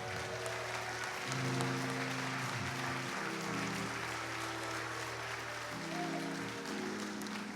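Congregation applauding over music of long held chords that change every second or two.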